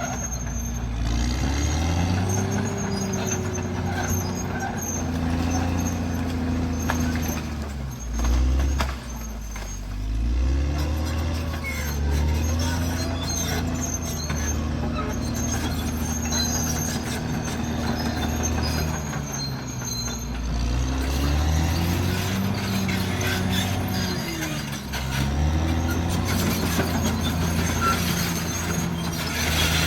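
Caterpillar D6R bulldozer's diesel engine working hard, its revs dropping under load and climbing again several times as it pushes.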